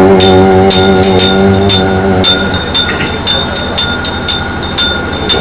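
Ayyappa devotional song: a voice holds one long sung note for about two seconds, then breaks off while the accompaniment keeps going, ringing metallic strikes keeping the beat about three times a second over a thin steady high tone.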